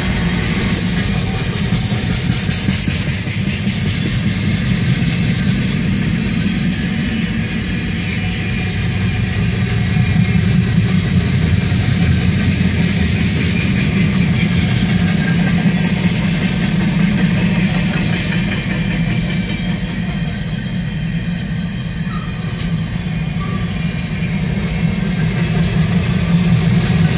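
Freight train rolling steadily past close by: the continuous rumble of freight cars' steel wheels on the rails.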